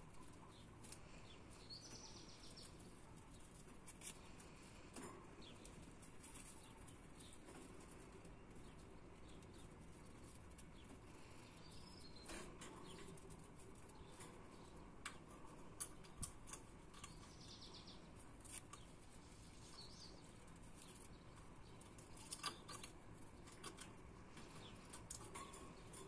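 Faint budgerigar sounds: a few short high chirps and scattered light clicks and taps.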